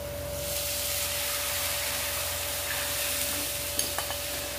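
Curd and gram-flour batter poured into hot tempering oil in a non-stick pan, sizzling steadily from about a third of a second in, with a few light clicks near the end.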